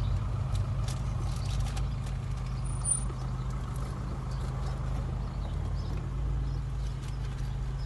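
Car cabin noise while driving slowly: a steady low engine and road hum, with scattered faint clicks and a brief high tone about three seconds in.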